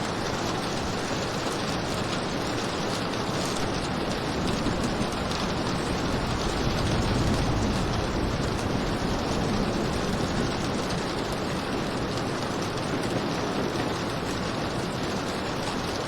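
Steady heavy rain hissing and pattering, with a low swell of rumble about seven seconds in.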